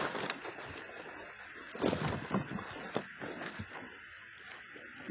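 Footsteps of leather lace-up work boots walking over dry leaves and grass on a dirt path, with a crunch and rustle at each step. The loudest steps fall about two seconds in.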